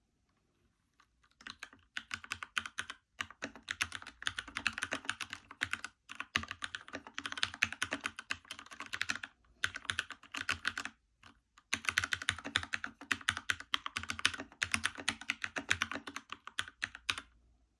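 Typing on a Keychron K2 v2 mechanical keyboard with stock red switches: fast, steady runs of key clicks with a few short pauses.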